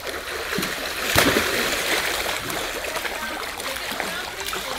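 A sharp hit on water about a second in, then a hiss of spray that fades over the next two seconds: a splash in a swimming pool.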